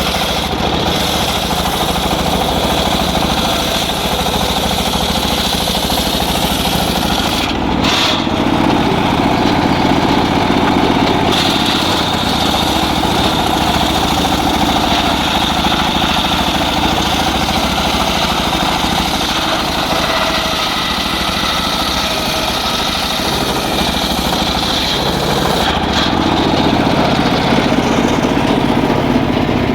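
Engine-driven saw running steadily under load while cutting teak, with a constant high whine over the engine, which eases briefly twice.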